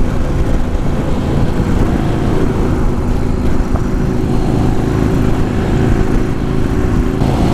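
A 2008 Yamaha Road Star Warrior's 1670 cc V-twin running steadily at highway speed, heard from the rider's seat, with wind rushing over the helmet microphone.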